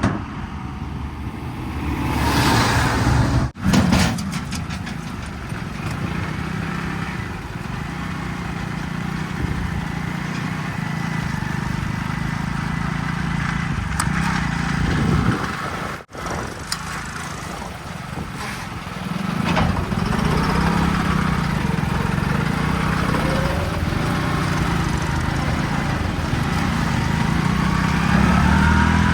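Diesel engine of heavy farm or construction machinery running steadily, with two brief dropouts in the sound, one a few seconds in and one about halfway through.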